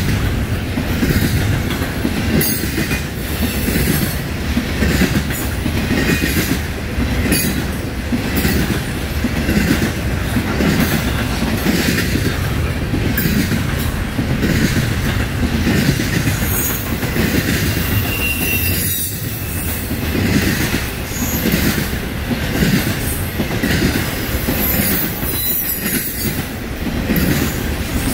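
Intermodal freight train of double-stack container well cars and trailer flatcars rolling past: a steady rumble of steel wheels on the rails, with recurring clicks as the wheels pass.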